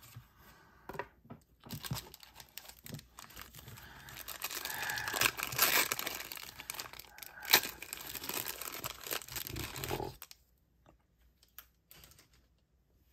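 Foil wrapper of a 1991 Pro Set football card pack being torn open and crinkled. A few light rustles come first, then the tearing and crinkling is loudest about halfway through and stops a few seconds before the end.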